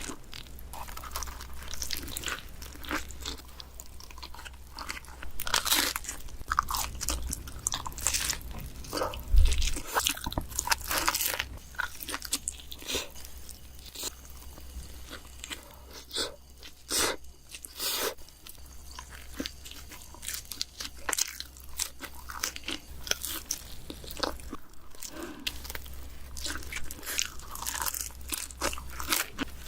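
Close-miked bites into pizza and chewing: a quick, irregular run of crisp crunches, one after another, over a steady low hum.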